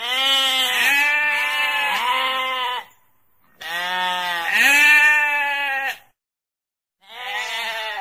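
Sheep bleating: three long, loud bleats with short pauses between them, each breaking into two or three wavering pulses.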